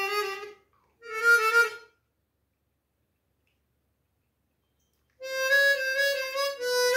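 Seydel Saxony chromatic harmonica with stainless steel reeds, in C, playing single notes to show its slider: a held note stops about half a second in, a short higher note follows around a second in, then about three seconds of silence before notes start again about five seconds in, stepping in pitch. No click from the slider is heard.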